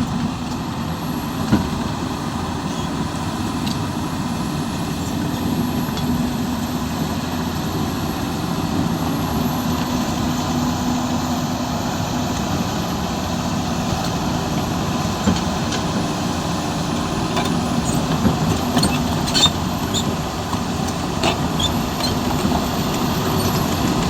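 Hyundai R220-9SH excavator's diesel engine running steadily, with a few sharp knocks, more of them in the second half.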